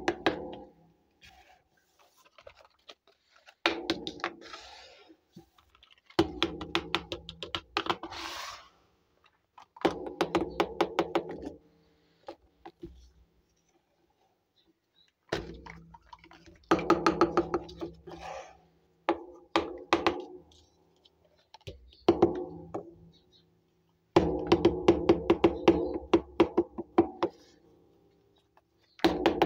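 Small plastic toy kitchen pieces clattering and rattling against a tabletop as they are set down. The sound comes in repeated bursts of rapid taps, each a second or two long, with short quiet gaps between.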